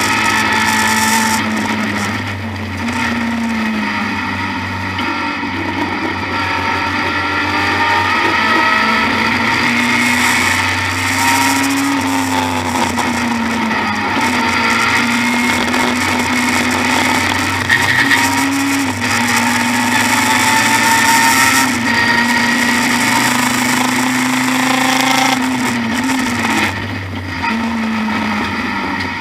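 BMW E30 M3 Group A race car's four-cylinder engine at racing speed, heard from inside the cabin. Its pitch climbs and drops repeatedly with gear changes and lifts for corners.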